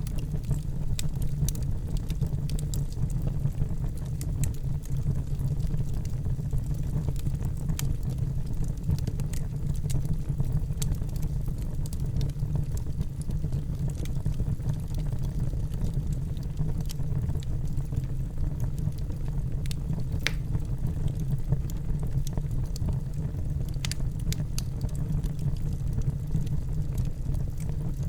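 Wood fire burning in a fireplace: a steady low rumble of the flames with scattered sharp crackles and pops throughout.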